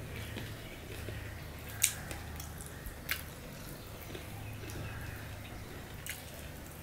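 Fingers squishing and mixing rice with mustard koi fish curry on a stainless steel plate, with two sharp clicks about two and three seconds in. A steady low hum runs underneath.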